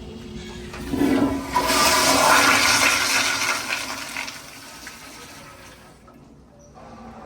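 A public-restroom fixture flushing: a sudden loud rush of water starts about a second in, stays strong for a couple of seconds, then dies away.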